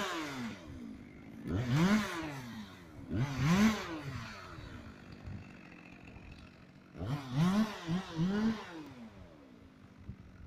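Chainsaw engine blipped at the throttle, its pitch rising and falling with each rev: twice in the first few seconds, then three quick revs near the end, idling between.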